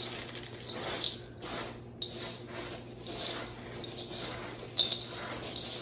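Wooden spoon stirring a thick mix of shredded hash browns, sour cream and cheese in a stainless steel mixing bowl: repeated squishing, scraping strokes, with a sharper click near the end.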